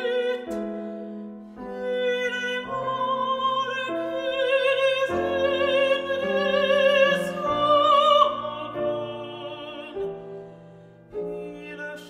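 Soprano and mezzo-soprano singing a classical art-song duet with piano accompaniment, the voices held with vibrato. The singing swells to a peak about two-thirds of the way through, then fades, and the piano comes in alone with chords near the end.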